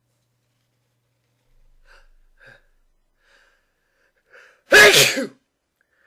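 A person's sneeze: a few faint breath catches as it builds, then one loud sneeze with a voiced 'choo' near the end.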